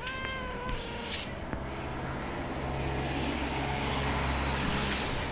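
A black-and-white cat meows once, a short call of under a second. Then a steady low engine hum swells and fades again over the following few seconds.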